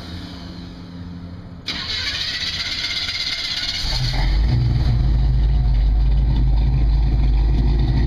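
Small-block 327 V8 with a Comp cam, breathing through Flowmaster mufflers, comes in loud about four seconds in and then runs steadily with a deep, low exhaust note. A hiss starts suddenly about a second and a half in, before the engine gets loud.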